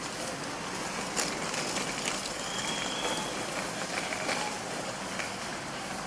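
Steady ambient background noise, an even hiss with a few faint clicks and brief faint tones, without any one clear source standing out.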